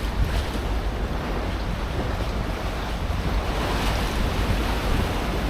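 Storm wind buffeting the phone's microphone, with a steady rush of waves and surf.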